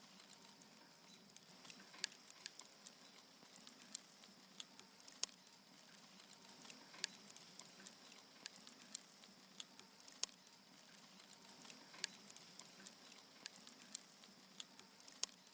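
Wood fire crackling: irregular sharp pops and snaps, several a second and uneven in loudness, over a faint steady hiss.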